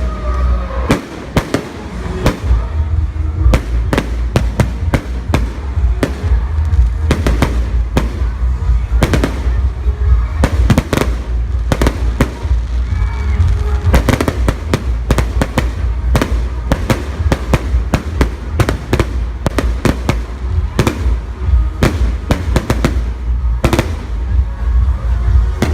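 Fireworks display going off in a rapid, continuous barrage of bangs, several a second, over a steady deep rumble.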